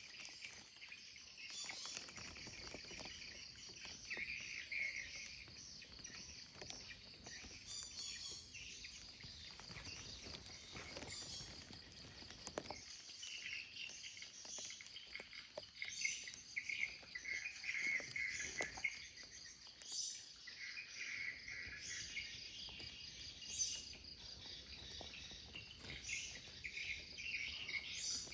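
Insects trilling steadily outdoors, with birds calling now and then and a few light clicks and rustles close by.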